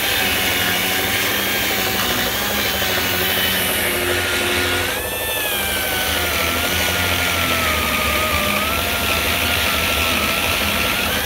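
Pneumatic die grinder running continuously as it grinds holes in a steel bracket out into slots, a high whine that wavers in pitch as it is pressed into the metal. About five seconds in it briefly eases off and the pitch jumps up, then sags slowly again under load.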